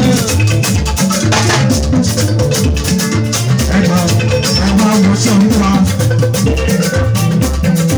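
Amplified live band music with a steady dance beat of drums and bass, fast rattling percussion ticking on top, and a man singing lead into a microphone.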